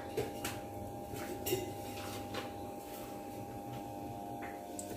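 Aluminium kadai of oil heating on a lit gas burner: a faint steady hum with a few light scattered ticks and clicks.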